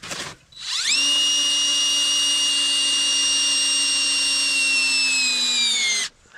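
DeWalt cordless drill screwing a carbide-tipped I-Grip traction stud into a rubber skid-steer track lug. A short click comes first, then the motor whines up to speed and runs steadily for about five seconds. Its pitch sags slightly near the end before it stops suddenly.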